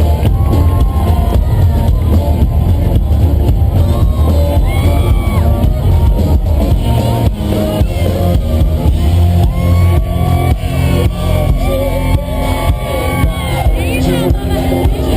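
A live country-rock band playing loudly through a concert PA, with heavy bass, and the crowd shouting and whooping along.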